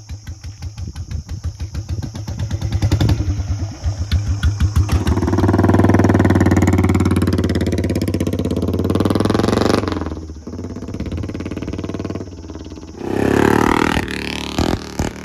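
Royal Enfield Bullet 350's single-cylinder engine running through an aftermarket 'monster' silencer: separate exhaust thumps speed up as it accelerates, held high for several seconds, drop off suddenly about ten seconds in, then a short second rev near the end. The exhaust gives a deep, bassy thump.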